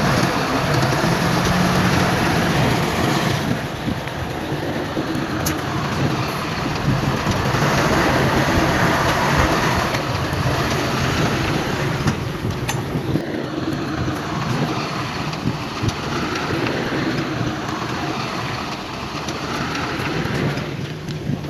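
Heavy diesel earthmoving machinery running under load: a steady engine hum beneath a broad, rough clattering noise that swells and eases, with a couple of sharp knocks.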